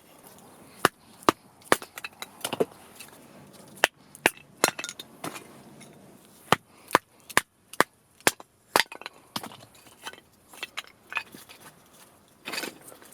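Dry wood cracking and snapping: irregular sharp cracks, about one or two a second.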